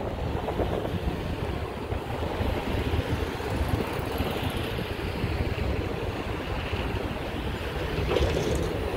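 Wind buffeting the microphone over the low rumble of a distant double-stack freight train moving away.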